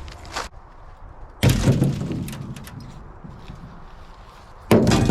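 Two heavy thuds, about three seconds apart, each dying away slowly: ears of corn tossed into a John Deere combine's corn header, landing on its sheet metal so they can be shelled.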